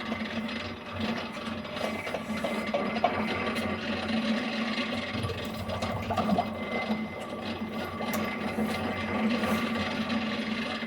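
ZONDAR hydraulic core drill and its hydraulic power unit running steadily: a constant hum over a grinding noise, with a few sharp clicks.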